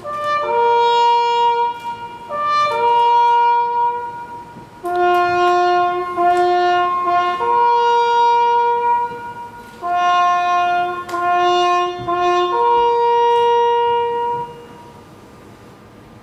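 A solo brass instrument plays the slow, solemn call for a moment of silence in long held notes, one at a time. It fades out near the end.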